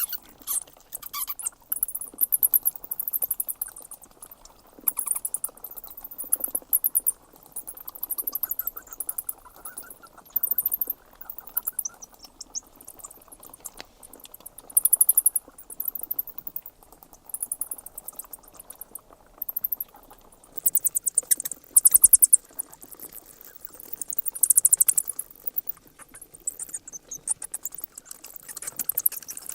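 Bats squeaking and chittering: rapid trains of very high-pitched squeaks that come in bursts of a second or two, again and again at irregular gaps, over a faint background hiss.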